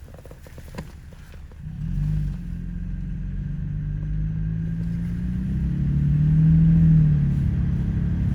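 Vehicle engine running. About two seconds in it comes up loud with a low hum whose pitch rises and falls as it speeds up, growing louder toward the end.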